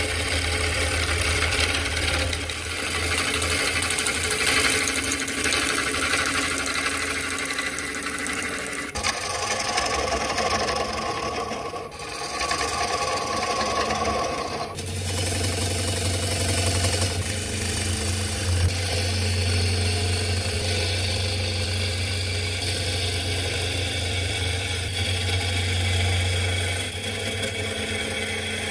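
Wood lathe spinning a laburnum (golden rain) burl blank while a gouge cuts into it, peeling off shavings. A steady rushing, scraping cut sits over a low hum from the lathe, and the sound shifts abruptly twice.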